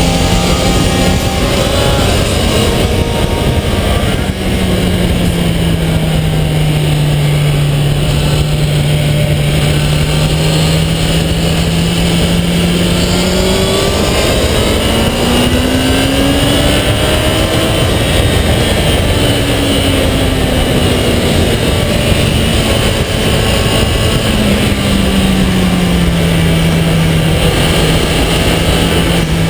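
2008 Kawasaki ZX-10R's inline-four engine running at speed on track, heard from the bike with heavy wind rush over the microphone. The engine note holds steady, rises as it accelerates about halfway through, then drops back again near the end.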